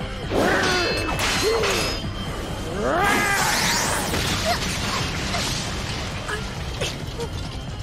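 Anime battle sound effects: a monstrous creature's voice shrieks in two bursts over a dense rushing, crashing roar of fast combat, with impact hits.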